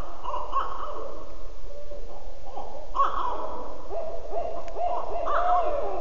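Barred owl calling: a rhythmic series of hoots with overlapping wavering calls that runs on without a break.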